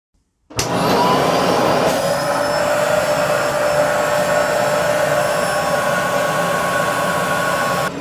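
Aspiron CA006 canister vacuum cleaner switched on by a foot on its power button: the motor starts suddenly about half a second in, its whine rising as it spins up, then runs steadily.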